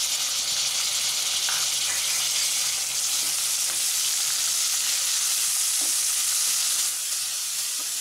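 Chopped tomatoes and onions sizzling in hot oil in a metal kadhai, a steady hiss, with a few light scrapes of a spatula stirring through them. The sizzle eases slightly near the end.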